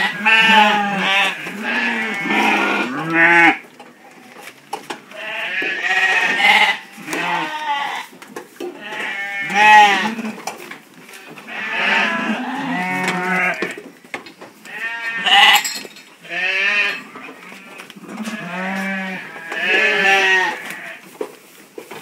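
Several ewes bleating over and over, in bouts of wavering calls every few seconds with short quieter gaps between them.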